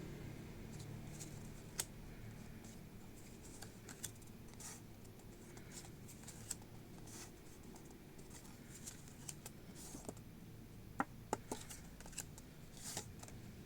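Hands handling trading-card packaging and cards: scattered soft rustles and light clicks, with a few sharper clicks late on.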